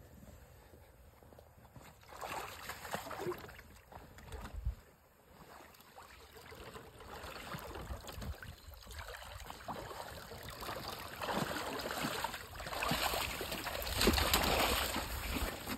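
Water sloshing and splashing around the legs of someone wading, pushing a minibike by hand. The sound starts about two seconds in, comes in uneven surges, and is loudest near the end, as the bike is pushed up out of the water onto the bank.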